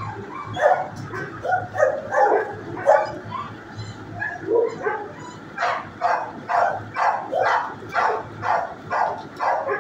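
Shelter dogs barking in the kennels: irregular barks at first, then a steady run of about two to three barks a second from a little past halfway.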